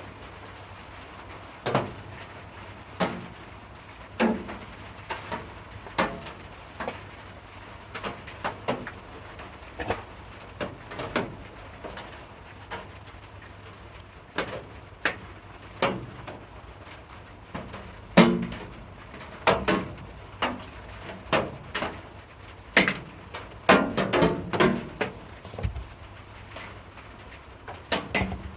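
Irregular knocks, taps and clatter of hard objects being handled, some with a short ring, thickest about five seconds from the end, over a steady low hum.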